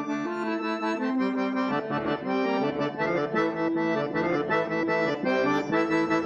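Syrnai, the Kazakh button accordion, playing a melody over held chords, the notes changing several times a second.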